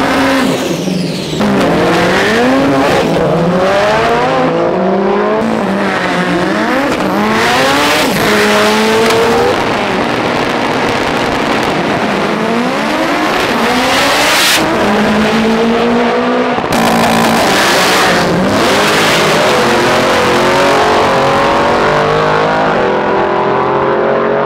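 Turbocharged 2.5-litre EJ25 flat-four of a methanol-fuelled, 1400 hp drag-racing Subaru WRX STI running hard. Its pitch climbs and drops again and again as it revs and pulls through the gears, with tyre squeal near the start.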